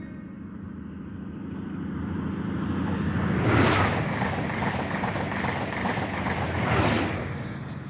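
Recorded train passing close by: a rumbling rush that builds over the first three seconds, with two sharp peaks about three seconds apart, then eases off.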